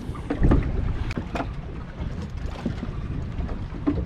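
On-board sound from a small fishing boat: wind rumbling on the microphone, with scattered light knocks and clicks and a louder low thump about half a second in.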